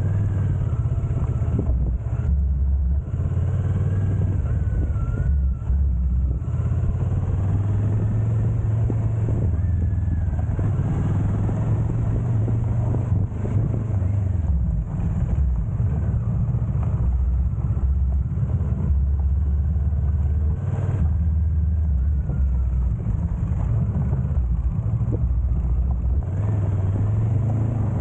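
Motorcycle engine running while the bike is ridden, the revs rising and falling, under a heavy low rumble.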